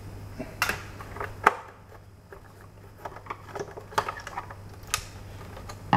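Screwdriver working screws out of the hard plastic underside of a toy vehicle, with scattered light clicks and taps as the plastic body is handled.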